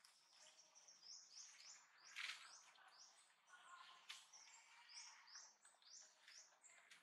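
Faint bird calls: a quick series of short, high, rising chirps, about two or three a second.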